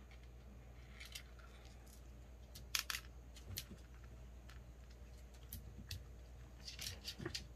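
Faint scattered clicks and light rattles from handling around a wire cat crate, sharpest about three seconds in, with a quick run of clicks near the end.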